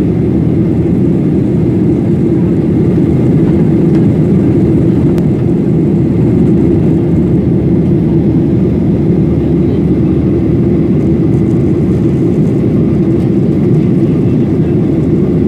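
Jet airliner cabin noise heard from a window seat: the steady, loud rumble of engines and airflow, strongest in the low range and unchanging.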